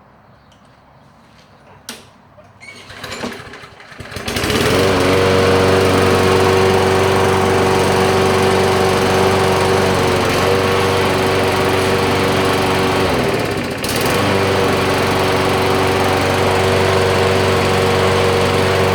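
Walk-behind lawnmower's small four-stroke engine starting about four seconds in and then running steadily at a constant speed, now staying running after its carburetor was cleaned. About thirteen seconds in the engine note dips briefly and picks straight back up.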